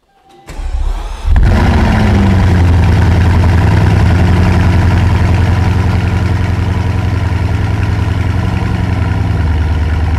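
Bugatti Chiron's quad-turbo W16 engine cranking and catching about a second in, flaring briefly, then settling into a steady idle.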